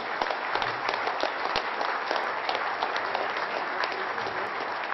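Audience applauding: many people clapping at once, steady throughout.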